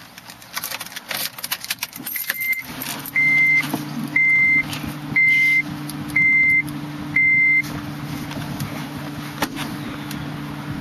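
Keys jingling and clicking at the ignition, then the car's engine starts about two seconds in and settles into a steady idle. Over the idle a dashboard warning chime beeps six times, about once a second.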